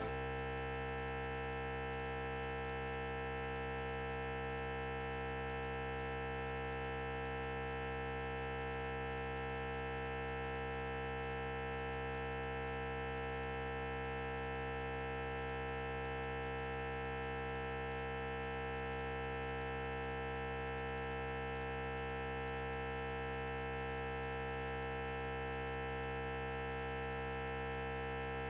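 Steady electrical hum with a buzz, holding at one level without change.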